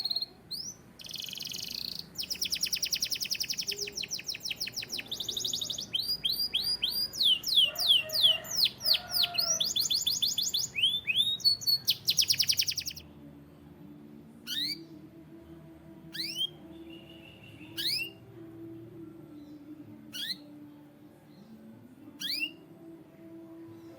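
Canary singing: a long run of rolling trills and fast repeated whistled notes, then about halfway through it drops to single quick falling chirps every second or two.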